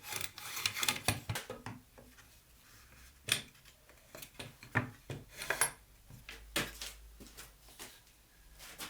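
Hand rubbing on wood, like sanding or filing, that stops about two seconds in. It is followed by scattered light knocks and clinks of tools and wooden parts being handled, the sharpest a little after three seconds and around five and a half seconds.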